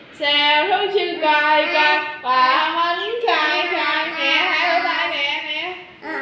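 A young boy singing loudly in a high voice, in long held notes that slide up and down.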